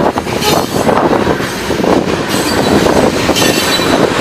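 Freight cars (tank cars and covered hoppers) rolling past close by: a loud, continuous rumble and clatter of steel wheels on the rails, with a thin wheel squeal now and then.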